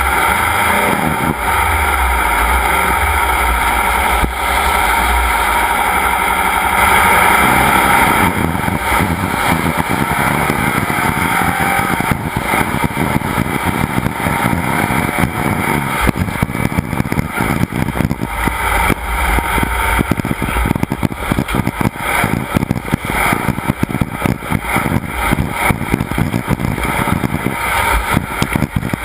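Off-road race vehicle engine running and revving, loud and continuous; from about eight seconds in the sound turns choppy and uneven.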